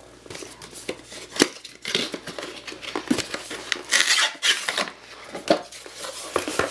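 A cardboard box being opened by hand and its packaging handled: irregular scraping with many sharp clicks and knocks.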